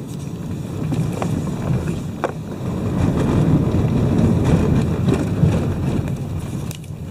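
Low road and engine rumble heard from inside a moving taxi, swelling in the middle and easing off near the end.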